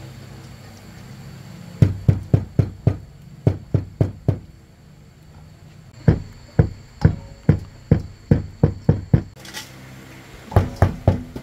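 A series of sharp knocks, struck about three to five times a second, in three runs: about a dozen from about two seconds in, another ten or so from about six seconds in, and four or five near the end.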